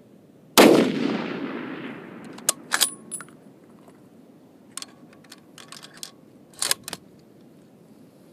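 A single shot from an M1903A4 Springfield bolt-action rifle in .30-06, its report echoing away over about two seconds. Then a series of short metallic clicks and clacks, a louder pair near the end, as the bolt is worked to chamber the next round.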